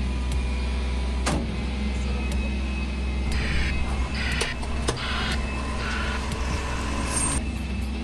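Front-loading garbage truck's engine running as its front lift arms come down after emptying a bin. Several short squeals come in the middle, with scattered clanks.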